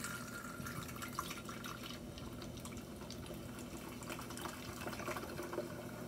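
Coca-Cola pouring in a stream into a glass electric kettle, splashing and fizzing as it foams up.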